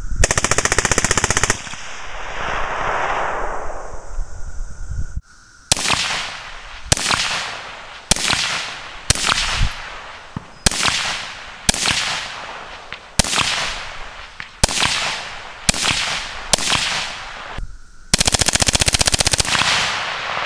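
A suppressed M16 rifle firing: a full-auto burst of about a second and a half, then about a dozen single shots roughly a second apart, each trailing off in an echo, then another full-auto burst of about two seconds near the end. The opening burst is through a Delta P Mini Brevis suppressor.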